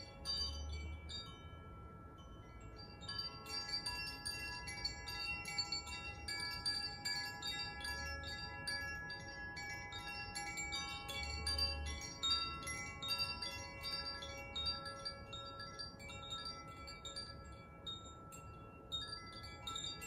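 Koshi and Zaphir chimes swung by hand, their clappers striking the tuned rods inside to give many overlapping, sustained ringing tones with a bright tinkle. Sparser for the first few seconds, then a dense shimmer from about three seconds in.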